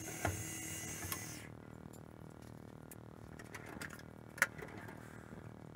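A steady machine hum and whine cuts off suddenly about a second and a half in. After it come scattered light clicks and clinks of small tools being handled in a drawer of drill bits, the sharpest about four and a half seconds in.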